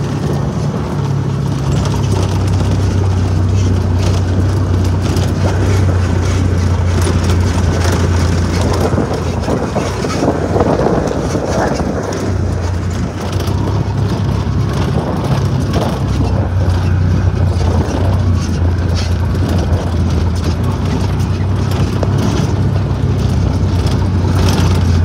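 Can-Am Maverick Sport 1000R side-by-side's V-twin engine running with a steady low drone as it drives a bumpy dirt trail, heard from the passenger seat, with wind noise and the rattle of the rough ride over it.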